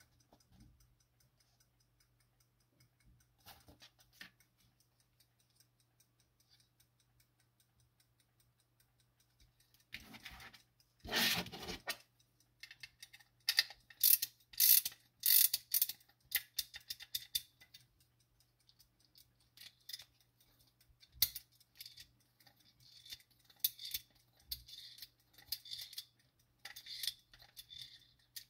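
Soviet marine wall clock movement being wound with its key: the mainspring's ratchet clicks in quick runs, mixed with handling knocks on the metal movement. Nearly quiet for the first ten seconds, then a short rustle before the clicking starts.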